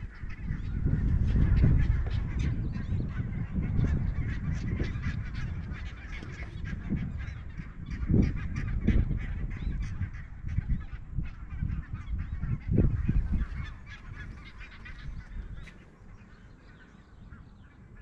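A flock of geese honking and calling steadily from across an open meadow, heard through wind buffeting the microphone in uneven gusts that ease off near the end.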